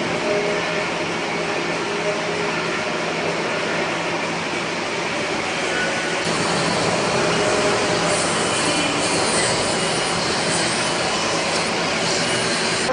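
Steady, dense noise of a metal fabrication shop floor, with machinery running and metalworking going on; it grows a little brighter and louder about two-thirds of the way in.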